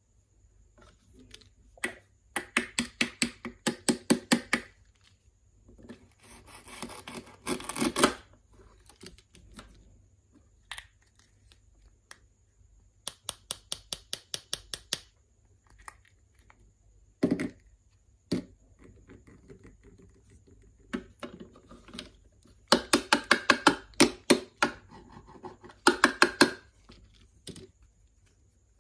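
Small knife chopping on a miniature cutting board in quick runs of strokes, several a second, with a stretch of scraping and a single knock between runs.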